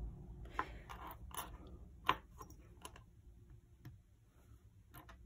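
Faint, scattered light clicks and ticks of a small handheld magnet touching a silver-tone metal link bracelet, its links clinking as they shift on a tile surface, during a magnet test of the metal; the sharpest click comes about two seconds in.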